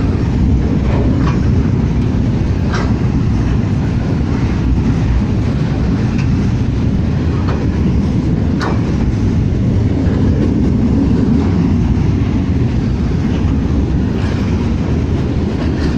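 Broad gauge freight train's container wagons rolling past close by: a loud, steady rumble of wheels on rail, with a few sharp clicks now and then.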